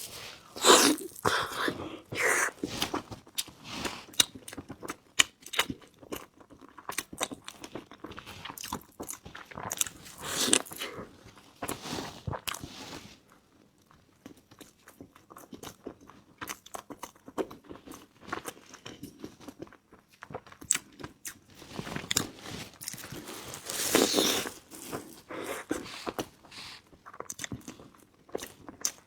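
Close-miked eating: bites and chewing, heard as irregular clicks and crackles, with a few louder bursts now and then.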